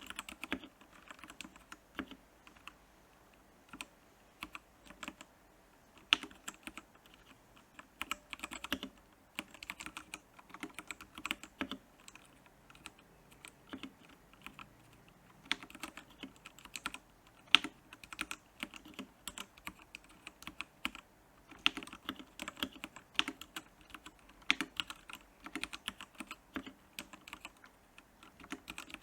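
Typing on a Royal Kludge R87 mechanical keyboard: runs of quick keystroke clicks in bursts, with short pauses between them and a couple of sharper, louder strokes.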